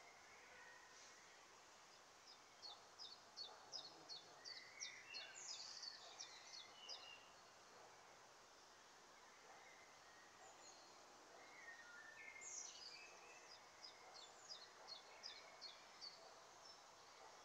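Faint songbird singing: two runs of quick, evenly repeated high notes, about three a second, the first starting about two seconds in and the second about twelve seconds in. A few softer chirps and a steady outdoor hiss lie under the song.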